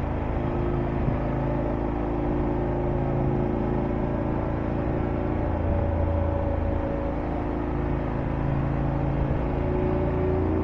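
Motorcycle engine running steadily at a constant speed, with wind and road noise over it.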